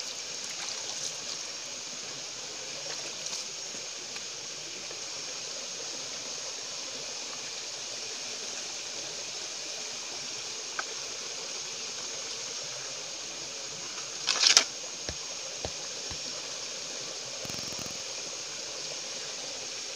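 Steady hiss of flowing river water, with a short louder splash about fourteen and a half seconds in.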